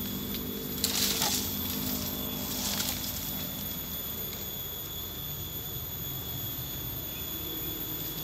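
Dry bamboo leaves and stems rustling and crackling as they are pushed through, in two short bursts: the louder about a second in, a weaker one near three seconds. Under them run a steady high whine and a low hum.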